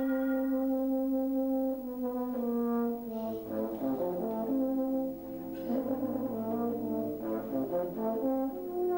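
Euphonium playing a solo melody over soft brass band accompaniment: a long held note, a couple of falling steps, then a quicker moving passage, settling on a higher held note near the end.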